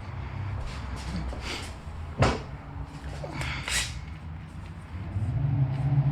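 Handling noises while parts are being fitted: a single sharp knock about two seconds in, with a few brief rustles and scrapes around it. A low steady hum grows louder near the end.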